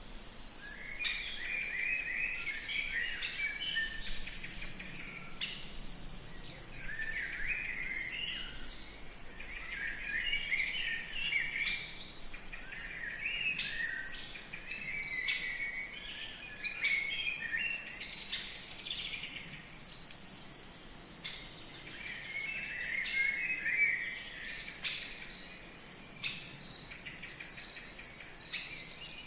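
Rainforest ambience: an insect chirping in a steady high-pitched pulse throughout, with birds chattering in irregular bursts beneath it.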